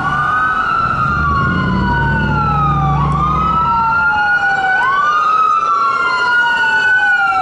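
Two emergency-vehicle sirens wailing at once and out of step. Each rises quickly in pitch, glides a little higher, then falls slowly, about every three seconds. A low rumble sits under them for the first few seconds.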